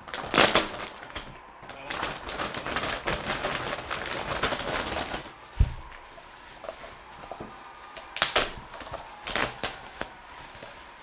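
Packaging being handled and opened: a stretch of rustling and crinkling, with a few sharp clicks or taps, the loudest near the start and two more near the end.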